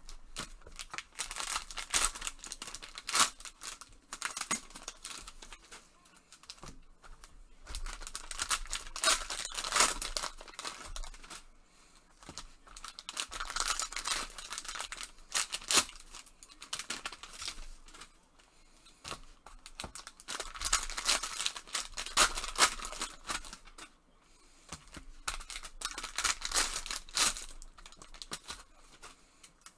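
Foil wrappers of 2020 Panini Prizm football retail card packs being torn open and crinkled by gloved hands, with the cards handled and flicked through. The rustling comes in five spells of a few seconds each, with short quieter gaps between them.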